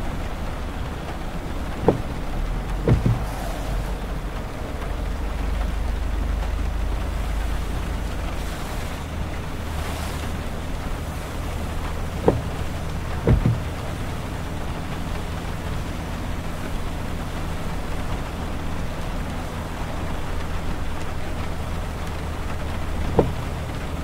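Inside a car driving on a wet highway: steady tyre and road hiss with a low engine hum. An intermittent windshield wiper sweeps three times, about every ten seconds, each sweep a sharp click followed about a second later by a double thump.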